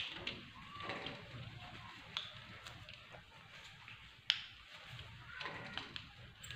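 Baby monkeys clambering on a curtain and its metal curtain rail: a few sharp knocks and faint rustling.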